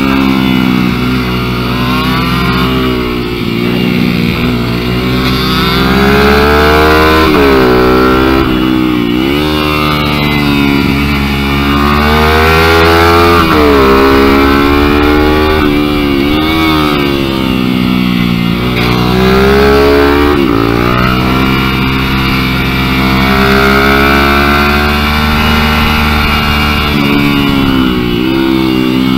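A small mini-bike engine heard onboard at racing speed, running hard, its pitch climbing under throttle and dropping back many times as it laps the track.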